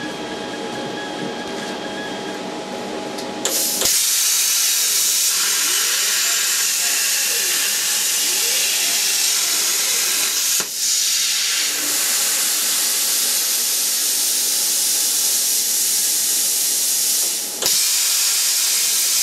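CNC plasma cutter torch on an R-Tech table: after a few seconds of low hum, the plasma arc strikes about three and a half seconds in and cuts steel plate with a loud, steady hiss. The hiss cuts out briefly twice and starts again, with a faint whine rising and falling underneath.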